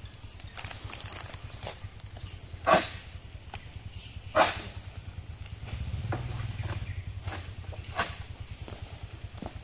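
Steady high-pitched chorus of insects, with two sharp knocks a couple of seconds apart and a fainter click later.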